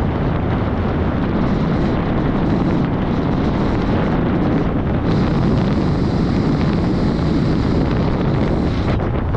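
Loud wind noise buffeting the microphone, a steady low rumble, with a higher hiss joining from about five seconds in until just before the end.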